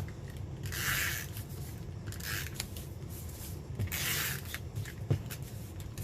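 Three short rasping strokes of paper being handled, a second and a half or so apart, with a soft knock near the end.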